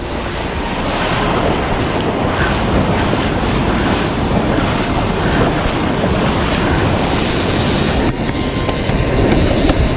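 Surf breaking along a reef edge and whitewater washing across a shallow reef flat, a loud steady rush, with wind buffeting the microphone.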